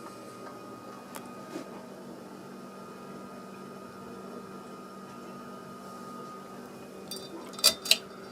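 Casablanca Lady Delta ceiling fan running, a steady motor hum with a faint high tone. Two short sharp noises come near the end.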